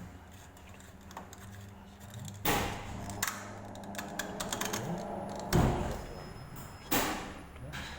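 Several hard knocks and clunks, the loudest about halfway through and another near the end, over a low steady hum.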